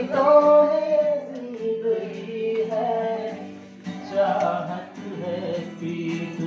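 A man singing a Hindi song with long held notes, accompanied by a strummed acoustic guitar.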